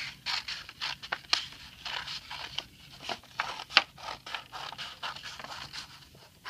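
Scissors cutting paper: a run of uneven snips with paper rustling, about two a second, one sharper snip about halfway through.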